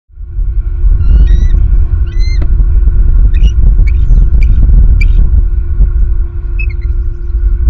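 Strong wind buffeting an outdoor nest-camera microphone, a loud steady low rumble with a constant hum, over which birds give short, high squeaky calls several times.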